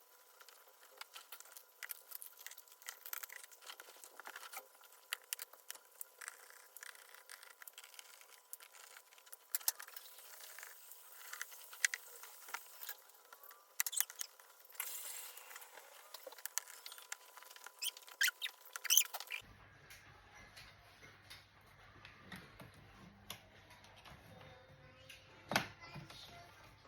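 Hands working on a laptop's plastic case: scattered small clicks, taps and short scrapes.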